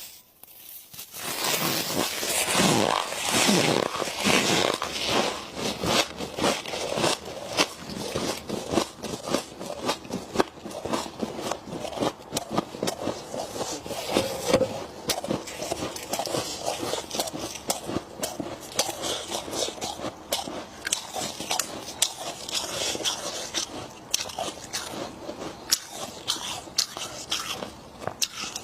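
Freezer frost being bitten and chewed close to the microphone: dense, irregular crackly crunching that goes on throughout and is loudest in the first few seconds.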